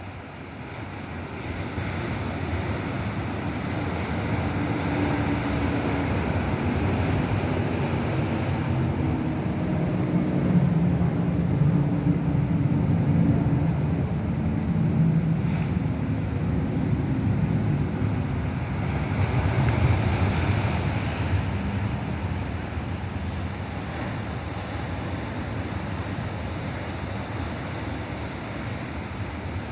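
Ocean surf breaking and washing ashore: the noise of the waves builds from about a second in, is loudest around ten to thirteen seconds in, surges again about twenty seconds in, then eases off.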